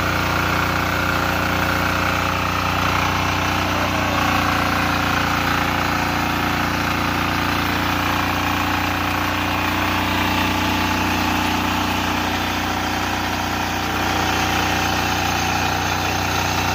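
Husqvarna TF 544 power weeder's single-cylinder air-cooled diesel engine running steadily while the machine tills soil.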